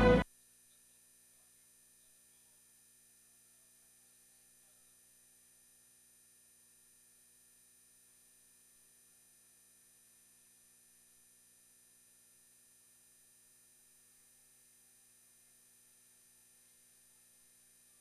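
Near silence: the closing music cuts off abruptly about a quarter second in, leaving only a very faint steady hum.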